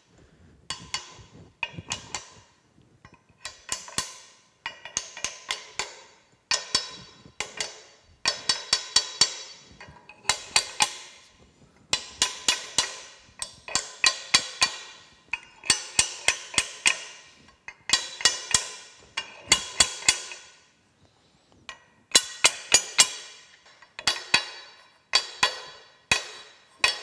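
Small brass hammer tapping a steel thrust bearing onto the end of a lead screw shaft: runs of quick, light metallic taps with a short ring, repeating about once a second with a brief pause near the end. The bearing is a tight fit and is being driven on.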